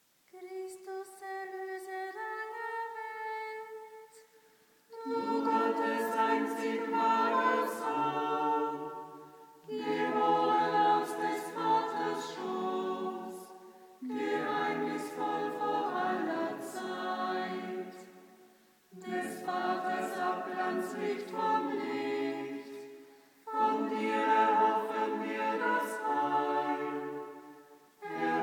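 Small mixed choir of nuns and brothers singing Compline, the Catholic night prayer, unaccompanied and in harmony. One voice intones alone for about four seconds. Then women's and men's voices join in phrases of about four seconds each, with a short breath between them.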